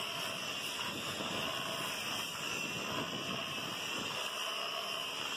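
Handheld electric buffer running steadily, its spinning pad working over the bare wooden hull to strip off old grime.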